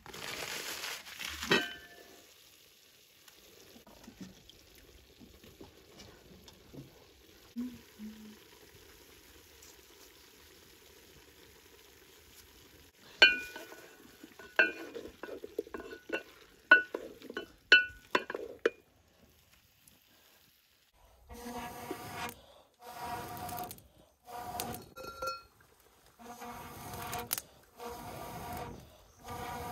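Wooden spoon stirring potatoes in an aluminium cooking pot: a short rustle at the start, then a string of sharp knocks of the spoon against the pot, with a ringing note. Near the end come repeated scraping strokes about once a second.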